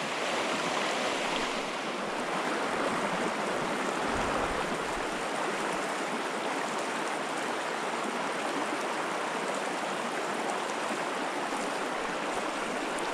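Small, shallow mountain creek running over a rocky bed: a steady rush of flowing water through riffles.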